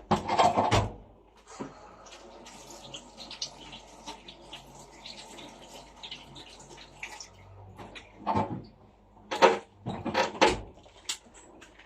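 Tap water running steadily into a sink as a carrot is rinsed, stopping after several seconds, followed by a few sharp knocks.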